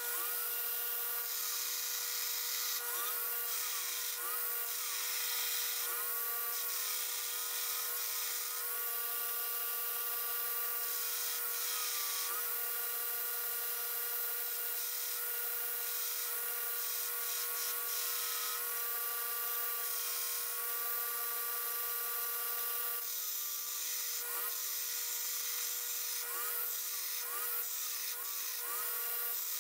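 Belt grinder running with a steady whine while a forged 5160 steel knife blade is ground on the belt in repeated passes. A harsh grinding hiss comes and goes with each stretch of contact, and the motor's whine dips briefly in pitch each time the steel is pressed to the belt.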